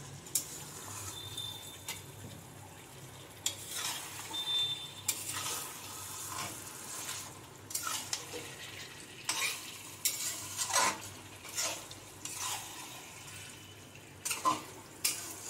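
Chicken pieces frying in oil and masala in a metal kadai, stirred with a spatula that scrapes and knocks against the pan at irregular moments over a steady low sizzle.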